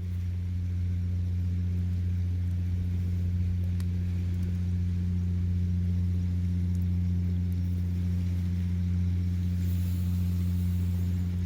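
Steady low engine hum, unchanging throughout, with a brief faint hiss near the end.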